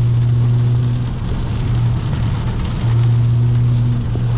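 Single-turbo BMW 335is's N54 inline-six droning at a steady cruise, heard from inside the cabin, over heavy rain on the car. The drone drops in pitch at the very start and eases briefly about a second in before holding steady again.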